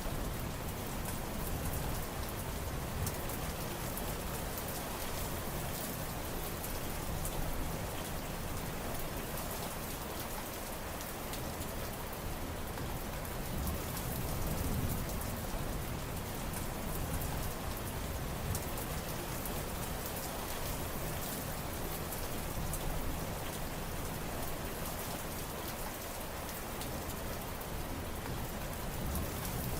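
Steady rain falling, with many small drop ticks and a low rumble that swells and fades a few times.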